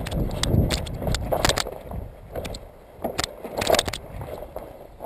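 Running footsteps crunching on gravel and rubble, with gear rattling, over a low rumble of movement in the first second.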